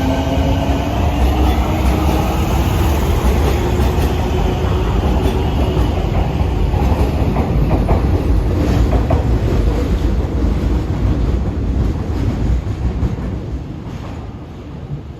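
Fukuoka City Subway 1000N series train pulling away, its motor tone rising in pitch over the first couple of seconds, then a loud, steady running noise with wheels clattering on the rails. This is the jet-plane-like abnormal noise these units are known for. The noise fades near the end as the train draws away.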